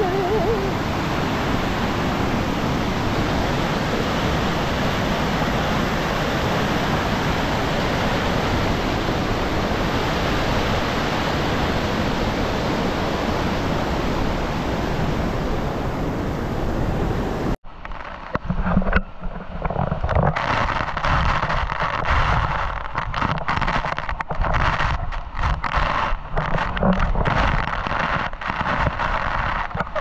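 Steady roar of a monsoon waterfall's rushing water. About seventeen seconds in it cuts off suddenly and gives way to an uneven run of crackles and knocks.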